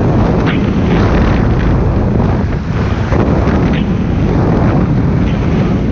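Heavy wind buffeting the microphone at the bow of a speedboat under way, over the boat's engine and water rushing past the hull.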